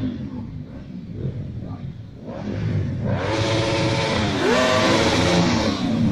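A group of motorcycles approaching, their engines revving with the pitch rising and falling, getting louder about halfway through as the bikes draw near.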